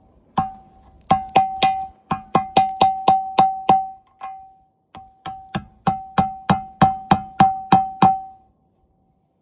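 Rapid sharp knocks on a part of an old TV being worked loose, about three a second, each with a short ringing tone. They come in two runs with a brief pause near the middle.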